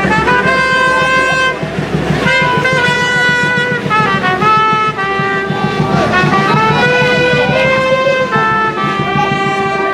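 Music: a melody of long held notes that step from pitch to pitch, over a steady pulsing beat.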